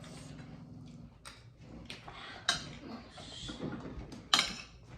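Eating noises at the table: chewing and mouth sounds, with a few short clicks of dishes or cutlery, the sharpest about halfway through and near the end.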